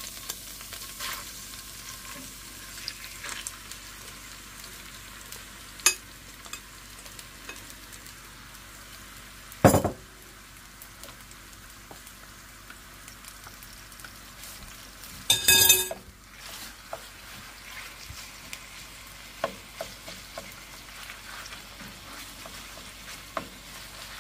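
Raw chicken mince sizzling as it fries in hot oil in a pan, stirred with a spoon, with a steady hiss and small crackles. A few sharp knocks of spoon and dishes come through, loudest about ten and sixteen seconds in, the last with a brief ring.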